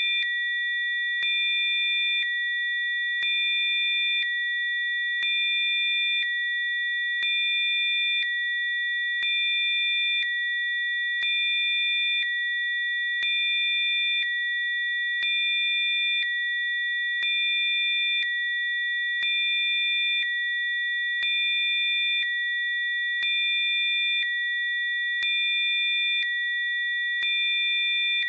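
Electronically generated pure sine tones: a steady high chord of three tones, with a fainter lower tone layer switching on and off about once a second. Each switch is marked by a faint click.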